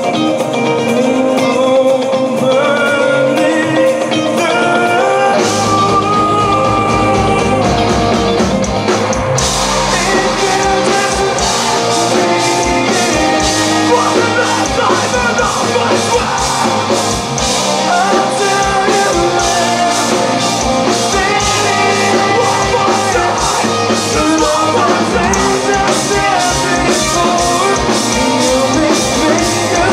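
Live metal band playing, with a man singing into a microphone over guitars. Bass and drums come in about five seconds in, and the full band with crashing cymbals joins from about nine seconds.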